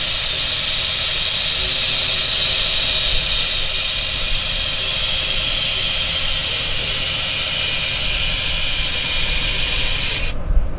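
Air-ride suspension on lifted pickups (Ultimate Air Ride and Kelderman kits) hissing steadily as air rushes through the valves and air bags while the trucks are raised and lowered, cutting off suddenly near the end.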